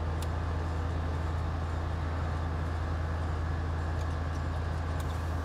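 Inside the cab of a 1989 Chevy Suburban on the move: a steady low engine and road drone, with a few faint ticks.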